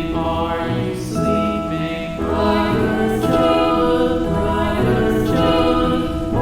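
Slow, calm relaxation music of sustained chords that change about every two seconds, each change opening with a brighter high shimmer.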